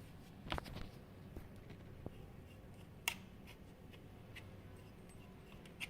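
A few faint, scattered metallic clicks and taps as the PX100 air rifle's steel air cylinder is turned by hand to unscrew it from the receiver. The sharpest click comes about three seconds in, over a low steady hum.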